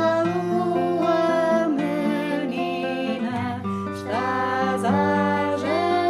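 Acoustic guitar strummed and plucked while voices sing a Portuguese song, with notes sliding up into the sung phrases.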